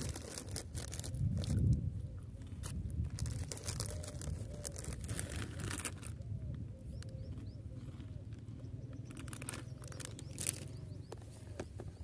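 Crinkly foil snack packet rustling and crunchy fried snack being chewed: a string of short crackles and crunches.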